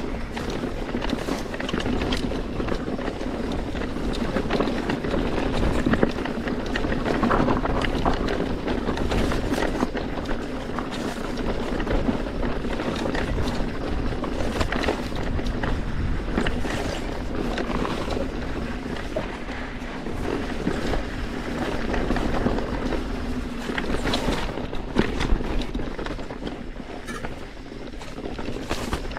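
Mountain bike descending a rocky trail at speed: wind buffeting the microphone over the steady rumble of tyres on loose rock, with frequent sharp clacks and rattles from the bike.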